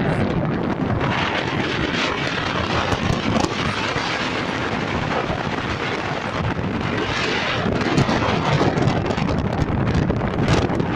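Gale-force wind howling and buffeting the microphone: a loud, continuous rush with gusts swelling about two seconds and seven seconds in.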